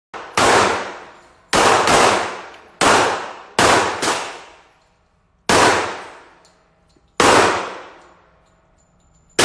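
Gunshots at a shooting range: about eight sharp shots at uneven intervals, each trailing off in a long echo.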